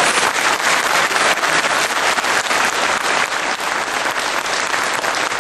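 A large hall audience applauding, a dense, steady clatter of many hands clapping.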